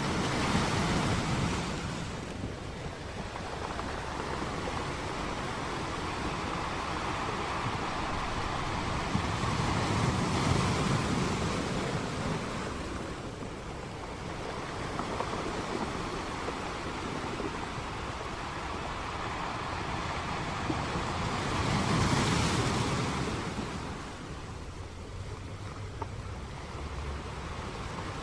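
Sea waves breaking and washing up the beach in slow surges, loudest near the start, about ten seconds in and again a little after twenty seconds, with steady wind buffeting the microphone underneath.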